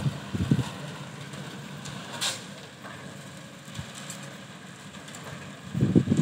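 Diesel engine of a Hyundai crawler excavator running steadily, with one sharp knock about two seconds in. Wind buffets the microphone near the start and again near the end.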